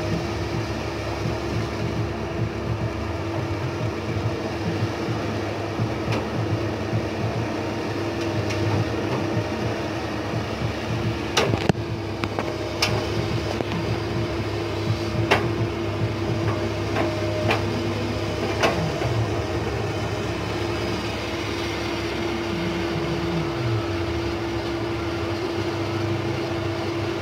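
Komatsu PC200 hydraulic excavator's diesel engine running steadily under digging load, with a constant whine held over the drone. A few sharp clanks come in the middle.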